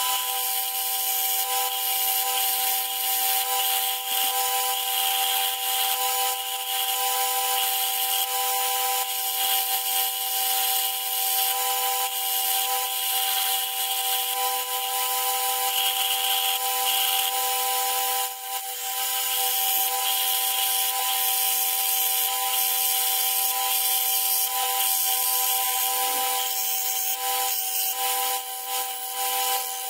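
Electric grinder running steadily with a constant motor whine and a hissing grind of steel, pausing briefly about two-thirds of the way through.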